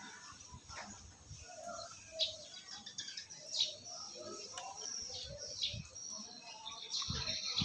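Small birds chirping in the background. Up close, a person is eating boiled snails, picking the meat out with a pin and chewing, with a few short sharp sounds about two, three and a half and five and a half seconds in.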